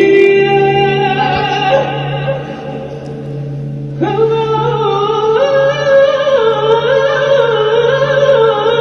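A male singer holding long, high, operatic notes over backing music. The first held note fades away about two seconds in, and a new phrase enters about four seconds in, climbing in pitch with vibrato.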